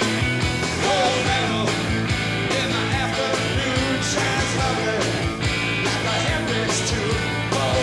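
Live punk-rock band playing loudly: distorted electric guitars, bass and drums driving a steady beat.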